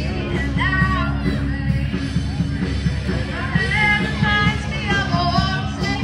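Rock music with a singer performing over a sound system, with steady bass under the sung melody; the singing is bad enough to be called murdering that song.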